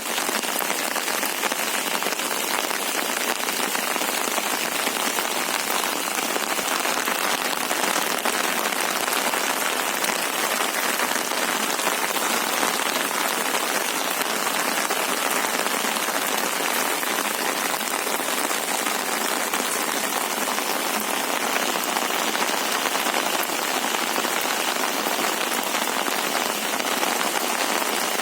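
Heavy rain falling steadily, a dense even hiss of drops hitting surfaces, with no let-up.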